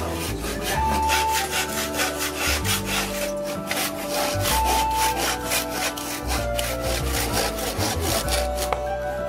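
Hand saw cutting through a softwood board in quick, even back-and-forth strokes, with a short pause near the end.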